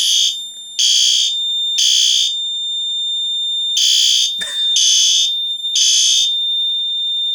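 Fire alarm horns on a Notifier NFW-50C system sounding in groups of three short blasts, a pause, then three more, over a steady, very loud high beep from the panel's piezo. A brief click about four seconds in.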